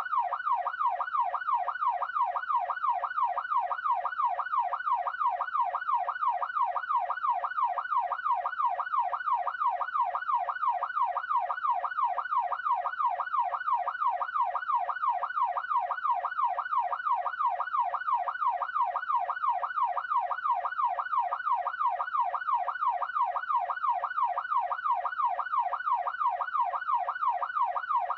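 Police siren in its fast yelp mode: the pitch sweeps up and down about three times a second, steady and unbroken.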